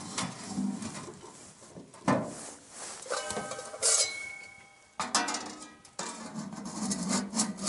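Split firewood knocking and scraping as it is pushed into a small steel tent stove, then the stove's round metal door clanking with a brief metallic ring as it is fitted back on, followed by light clicks of metal against metal.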